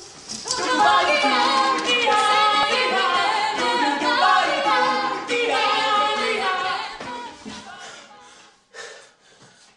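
A group of voices singing a cappella in several parts together, starting about half a second in and fading out around seven seconds in.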